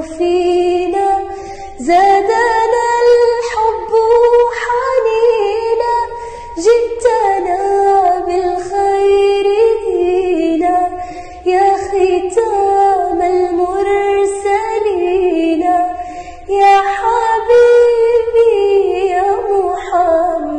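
A girl's voice singing an Arabic religious nasheed in long, gliding, held phrases, with short breaks between them.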